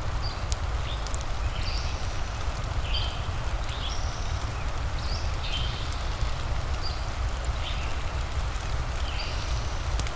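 Steady rain with a low rumble and scattered sharp fireplace crackles. Over it runs a series of short, high chirping calls, one every second or so.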